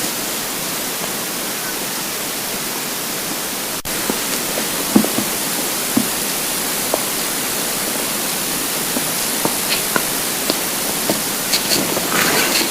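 Steady hiss of a heavily amplified close-up recording. From about four seconds in, short faint gurgles and squeaks of an empty stomach come every second or so, with a brief scratchy rustle near the end.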